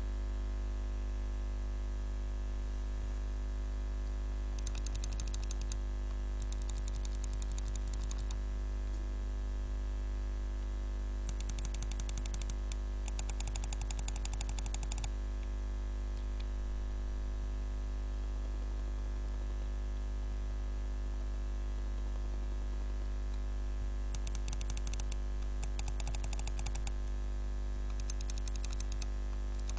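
Computer mouse buttons clicked in rapid bursts of about a second or two each, eight bursts in all, as silent and standard mice are compared. The bursts in the middle are fuller and reach lower than the thin, high clicks of the others. A steady low electrical hum runs underneath.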